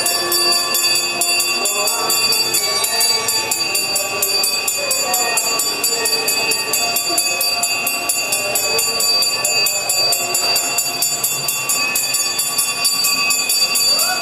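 Temple bells ringing rapidly and without a break, several high ringing tones over a fast, even clatter of strikes, as rung for a camphor-lamp offering (aarti), with a faint mix of voices beneath.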